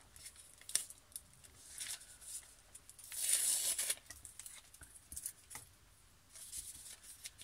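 Brown kraft-paper envelope rustling and crinkling as hands handle and open it, in short bursts with a few light clicks; the loudest rustle comes about three seconds in.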